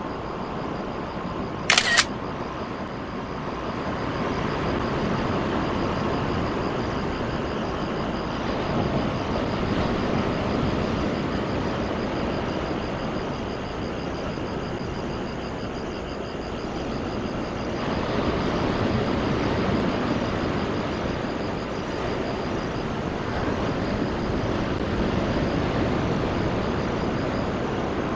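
Railway maintenance vehicle running slowly along the track, a steady rumble that swells a few seconds in and rises and falls after that. A single sharp click comes about two seconds in.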